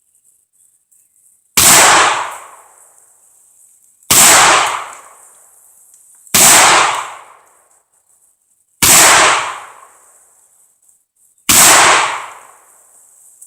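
Five revolver shots in slow aimed fire, about two and a half seconds apart. Each is a sharp crack that dies away over about a second. The gun is firing light handloaded .357 rounds with 125-grain bullets.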